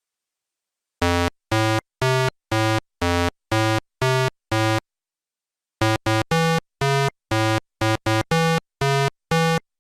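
Short synthesizer tune of clipped, evenly spaced notes at changing pitches: about eight notes, a pause of about a second, then about ten more, starting after a second of silence.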